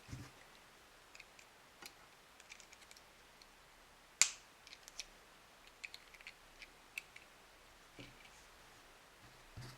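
Small hard plastic toy pieces clicking and tapping as they are handled, with a string of light clicks and one loud sharp snap about four seconds in. There are soft low thumps at the start and near the end.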